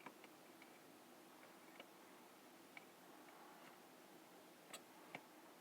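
Near silence with a few faint, scattered clicks and taps of Xbox 360 controller plastic parts and circuit board being handled and fitted together; the two clearest clicks come near the end.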